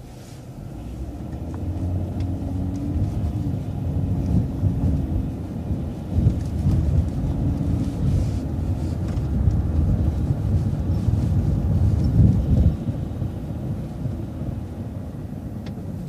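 Transit bus engine accelerating with a heavy low rumble. Its drone rises and shifts in steps as it pulls through the gears, then drops off sharply about three-quarters of the way through.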